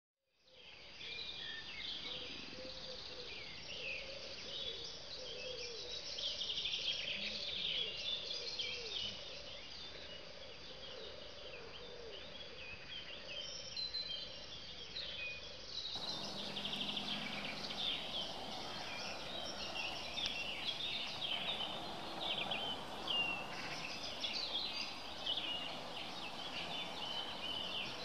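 Outdoor birdsong: many short chirps and twitters from small birds, with a lower repeated call under them in the first half.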